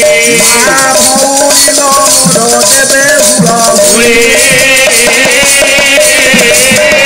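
Instrumental interlude of Odia pala ensemble music: a melodic instrument plays a line of held and sliding notes over a steady rhythm of jingling, rattle-like percussion.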